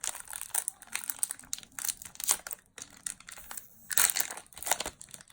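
Crinkling and crackling of a Yu-Gi-Oh booster pack's foil wrapper being handled, in irregular bursts, loudest about four seconds in.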